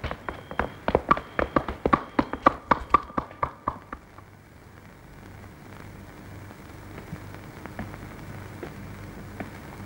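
Horses' hooves clopping on a stone street, a quick, uneven run of strikes that stops about four seconds in, leaving only a low, steady hiss.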